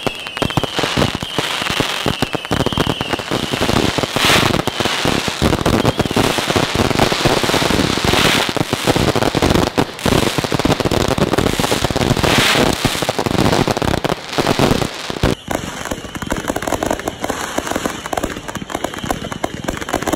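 Consumer fireworks going off in a dense run of pops, crackles and bangs, with louder bursts about every four seconds. A wavering whistle sounds through the first few seconds.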